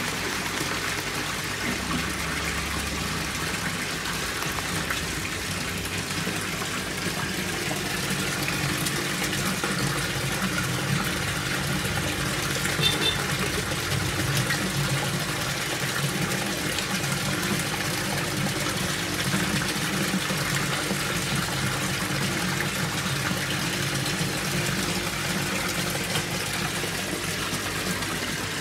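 ACP-631 submersible aquarium water pump running, its outlet jet splashing and churning the water steadily, with a low motor hum underneath.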